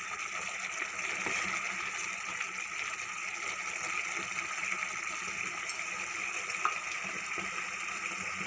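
Steady hiss with a few faint clicks from a pot of lauki chana dal curry simmering on a lit gas burner.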